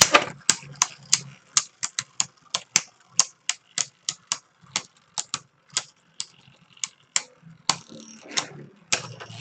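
Two Beyblade Burst spinning tops, Odax O2 and Unicrest, clashing in a plastic stadium: sharp plastic clacks a few times a second over a faint whir, with a longer rattle near the end.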